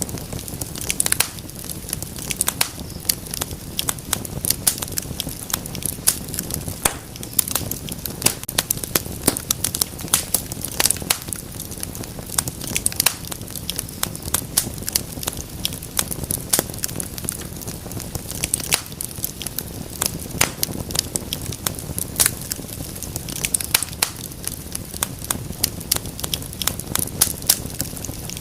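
Wood fire in a fireplace crackling, with many irregular sharp pops and snaps over a steady low rumble of the flames.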